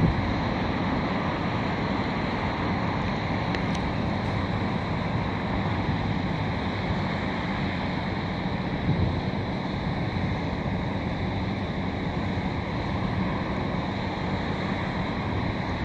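Steady outdoor background noise, a low rumble with hiss over it and no distinct events.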